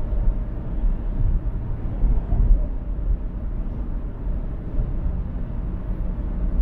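Car travelling at highway speed: a steady low rumble of road and engine noise.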